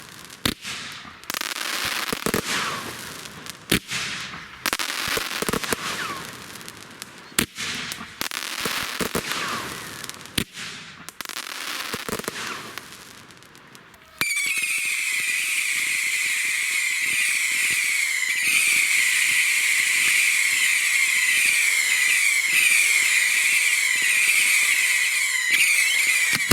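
Fireworks going off: a string of sharp bangs with crackling tails, then about halfway through a sudden, steady, dense hissing with a shrill whistle-like tone that runs on for about twelve seconds before cutting off.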